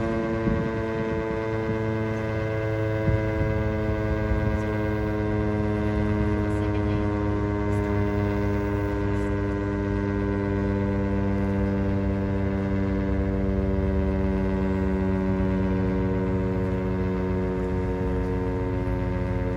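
Outdoor tornado warning siren sounding a steady tone that holds the same pitch throughout, several pitches heard together, with a low rumble beneath.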